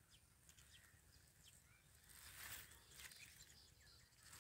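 Near silence: faint outdoor ambience with a few distant bird chirps, and a soft rush of noise swelling briefly about two seconds in.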